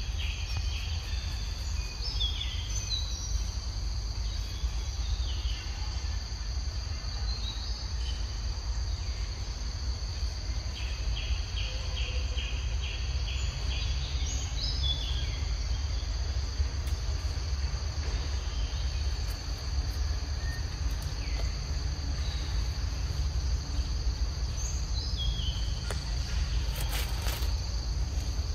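Forest ambience: insects make a steady high drone on two pitches, with scattered short falling bird chirps and a couple of brief trains of rapid notes. A steady low rumble runs underneath.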